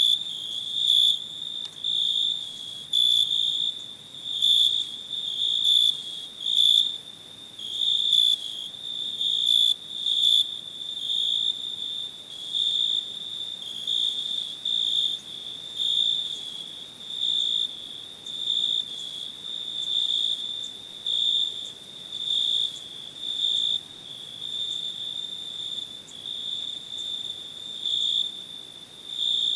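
Cricket chirping: a high, shrill trill that pulses about once a second in a steady rhythm.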